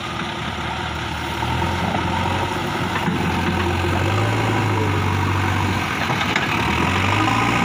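Diesel engine of a JCB 3DX backhoe loader running as the machine drives through mud, a steady low hum that rises a little in pitch and gets louder about halfway through.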